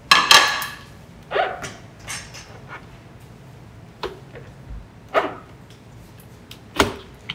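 Kitchen clatter: several short, sharp knocks and clacks a second or so apart, from bowls, utensils and a food processor being handled on a counter.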